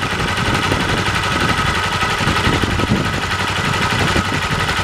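Honda Silk Road's single-cylinder four-stroke engine idling steadily, with a rapid, even pulsing. It is running on flushing oil to clean out the inside before an oil change.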